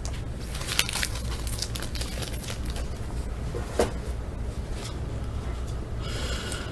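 Card pack wrapper being handled and opened, with light crinkling and small clicks and a sharper tick about a second in and again near the four-second mark, over a steady low hum.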